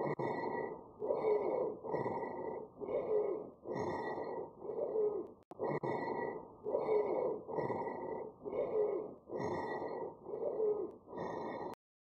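Auscultated lung sounds of a low-pitched, monophonic wheeze: a single whistling tone riding on the breath noise, mainly on breathing out, repeating with quick breaths about once a second. A click sounds about halfway through.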